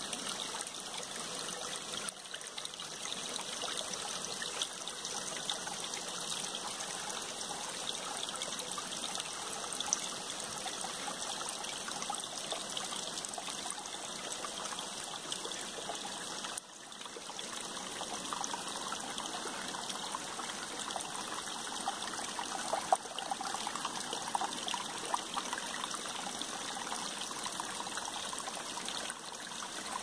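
Small shallow stream trickling and splashing over rocks: a steady babble made of many small splashes. It dips briefly a little over halfway through.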